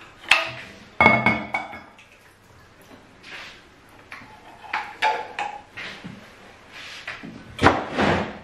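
A ladle clinking and scraping against a metal saucepan as soup is served, with scattered clatter of dishes. Metal rings briefly about a second in, and there is a louder cluster of handling noises near the end.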